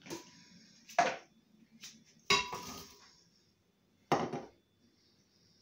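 Dishes and utensils being handled on a kitchen worktop: three sharp knocks and clinks spread over a few seconds, with lighter clicks between.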